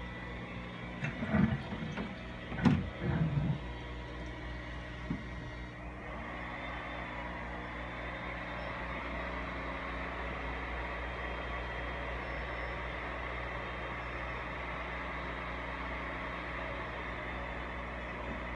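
Remote-controlled water-change pump running steadily as it sucks tank water and bottom debris up through a PVC pipe worked along the aquarium floor. A few sharp knocks come in the first few seconds, and the steady sound grows a little fuller after about six seconds.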